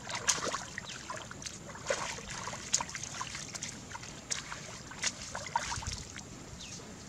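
Shallow river water sloshing at the bank, with a scattering of small, sharp splashes and wet slaps a second or so apart.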